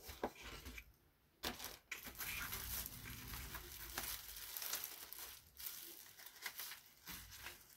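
Packing material crinkling and rustling as a plate is unwrapped from its box. The crinkling starts about a second and a half in and goes on, with a couple of short breaks, until near the end.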